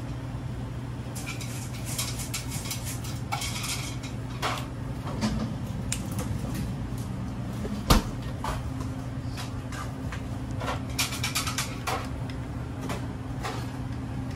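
Scattered clinks, clatters and knocks of utensils and containers being handled at a shop counter, with one sharp knock about eight seconds in, over a steady low hum.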